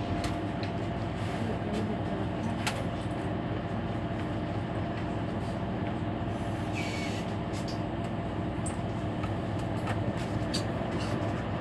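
Mercedes-Benz Citaro C2 Hybrid city bus standing at a stop with its engine idling, a steady low hum with a few light clicks. A short hiss of air about seven seconds in.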